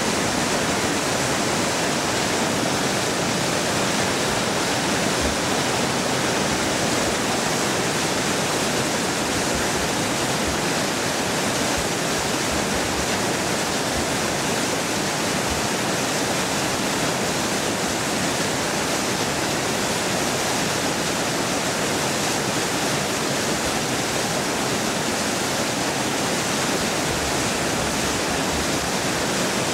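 Water pouring through a dam's spillway and churning into whitewater below, a steady, unbroken rush.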